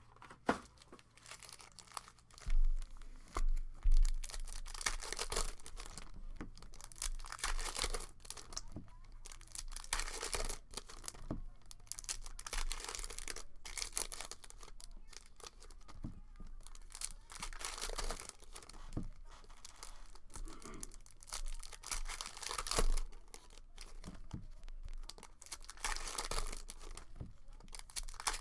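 Foil hobby packs of hockey cards being torn open and their wrappers crinkled and handled, an irregular run of tearing and rustling. A few low thumps stand out about three to four seconds in and again late on.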